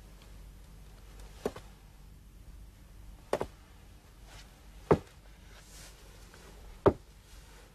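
Slow, sparse footsteps on a hard floor: four sharp taps spaced one and a half to two seconds apart, the second one doubled and the last two loudest, over faint room tone.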